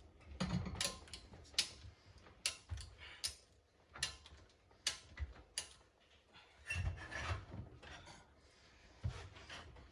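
Ratchet strap being cranked tighter, its handle clicking about once every 0.8 s, pulling a roll cage into position; near the end the load shifts with a rustle and creak.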